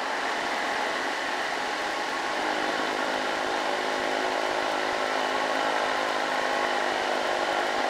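Diesel engine of a loaded light truck pulling uphill under a load of fertilizer, a steady drone whose engine note grows clearer about two and a half seconds in as the truck comes close.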